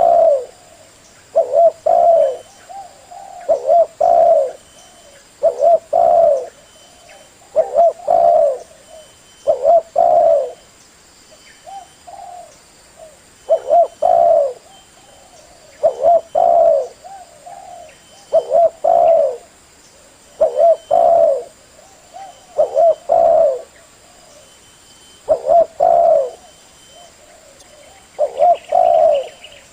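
Spotted dove (tekukur) cooing: the male's repeated song phrase, each two or three quick notes, about one phrase every two seconds. It is used as a lure call to draw other doves.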